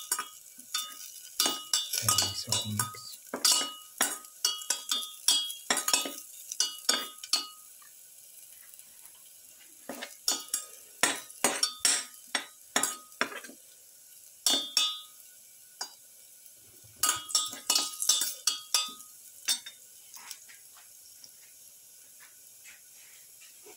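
Perforated metal spatula scraping and clinking against a steel pan as garlic, onions and shallots are stirred in the sauté. It comes in three runs of quick, ringing strokes with short pauses between, and dies down to a few faint taps near the end.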